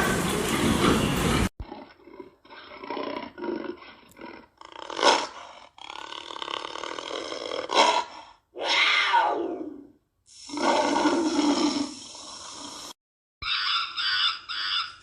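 A string of short animal-call clips cut one after another: calls of different kinds, one falling in pitch, one deeper and longer, with abrupt cuts between them.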